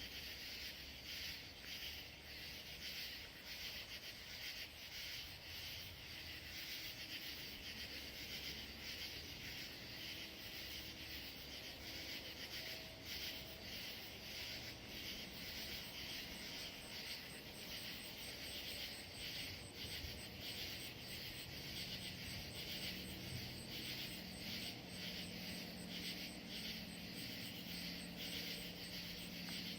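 Steady chorus of crickets and other insects chirping, with a rapid high pulsing call joining about halfway through. A low engine hum from a distant vehicle grows louder near the end.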